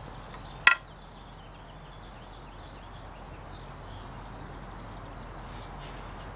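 A single sharp, ringing glassy clink of obsidian about a second in, as a freshly pressed prismatic obsidian blade is taken from the core in its holder.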